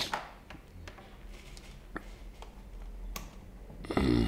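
A handful of scattered light clicks and taps over a low steady hum, with a short voice sound near the end.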